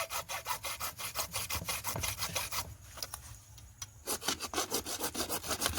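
Hand saw cutting through UPVC plastic pipe in quick back-and-forth strokes, about five a second, stopping for about a second and a half midway and then going on.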